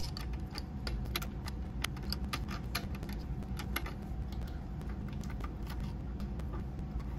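Irregular small metallic clicks and ticks from a wrench on the small power-terminal nut of a Harley-Davidson Shovelhead starter solenoid, and from fingers handling the loosened nut and washer on the stud.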